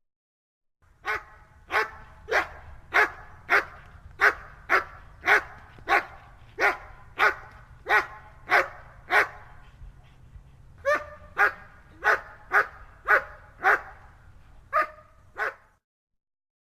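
German Shepherd barking repeatedly, about a bark every half second, in three runs separated by short pauses, over a faint low hum.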